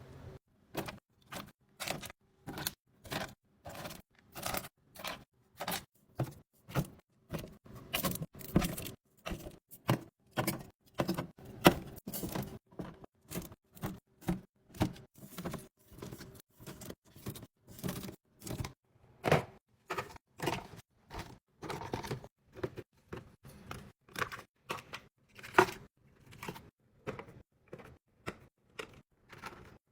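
Packaged snacks and containers being handled and set down into a fridge drawer: a quick, uneven run of taps, clicks, clatters and rustles, about two or three a second, with a few sharper knocks standing out.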